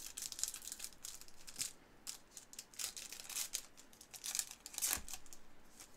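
1996 trading cards being handled and flipped through by hand: a run of papery scraping, sliding and crinkling, with a few louder scrapes near the middle and end.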